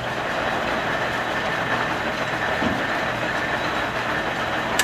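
Swift 12V6 HD gap bed lathe running under power: a steady mechanical whir from the spindle and drive, with a sharp click near the end.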